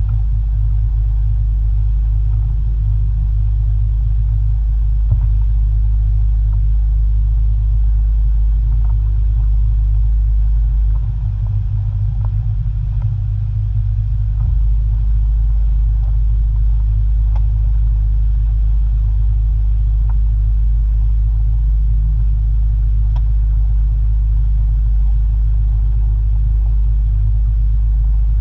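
Boat engine running steadily at slow cruising speed, a deep, continuous rumble that eases slightly for a few seconds near the middle.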